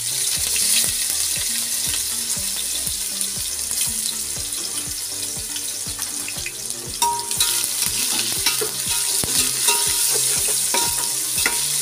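Sliced onions sizzling steadily in hot oil in an aluminium pot, with scattered clicks of a spoon against the pot as they are stirred.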